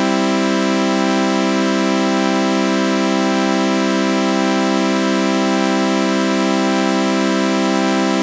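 Synthesized sawtooth-wave chord with a flanger effect, held as one steady, unchanging drone, with a slow sweeping ripple in its upper tones.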